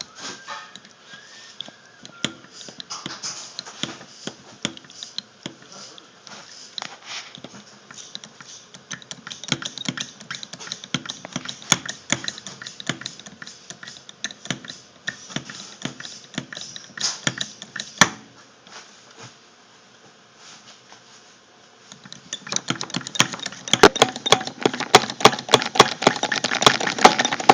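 Faulty fuel injector from an Audi 4000 Quattro spraying on test, making a rapid, irregular spitting and clicking. The spitting dies away about two-thirds of the way through, then comes back denser and louder.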